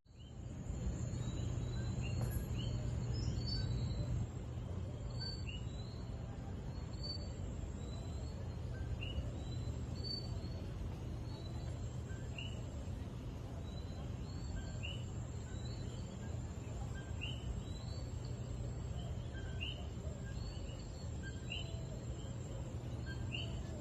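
Outdoor ambience: small birds chirping in short, scattered calls over a steady low background hum, with a thin steady high-pitched tone throughout.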